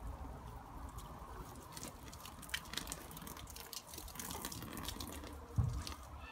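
Water from a garden hose nozzle spraying in a thin stream, with scattered drips and splashes landing on the swing and grass. One low thump about five and a half seconds in.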